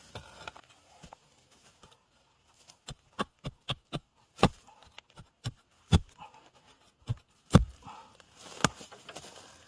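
A digging tool striking the ground in a series of sharp, irregular chops, about a dozen, the loudest near the end, while a winter bamboo shoot is being dug out.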